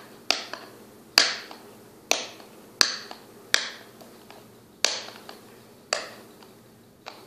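Fingernails clicking against a small cardboard cosmetics box as it is worked open: eight sharp clicks, about a second apart, each with a brief ringing tail.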